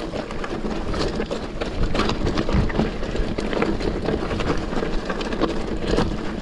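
Mountain bike rolling down a rocky singletrack: tyres crunching over loose stones and the bike rattling with frequent short knocks, over wind rushing on the microphone.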